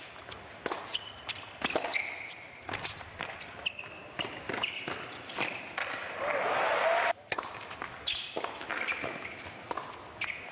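Tennis rally on an indoor hard court: a run of sharp ball strikes and bounces off racquet strings and court, with short high squeaks between them. A louder stretch of noise builds from about six seconds in and cuts off suddenly just past seven seconds.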